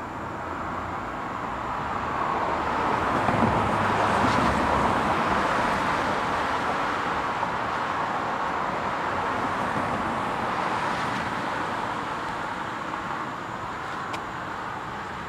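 Road traffic: cars passing on a city street, their tyre and engine noise swelling to a peak a few seconds in and then slowly fading as they drive on.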